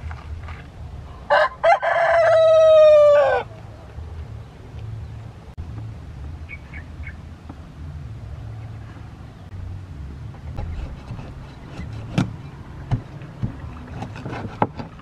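A rooster crows once about a second in: two short opening notes, then a long held note that drops in pitch at the end. Near the end come a few sharp knocks of a cleaver chopping into a large fish on a wooden board.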